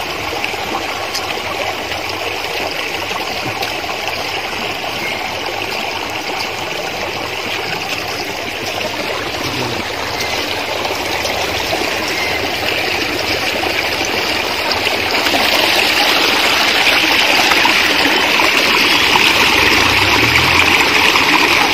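Water of a stream running steadily, an even rushing that grows louder about two-thirds of the way through.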